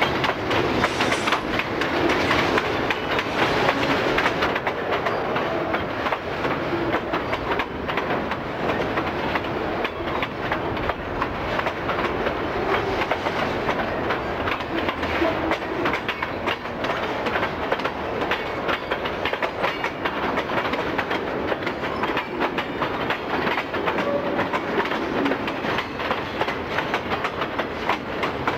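A mixed freight train's cars (boxcars, autoracks and trailer-carrying flatcars) rolling past close by, their steel wheels clicking and clattering steadily over the rail joints.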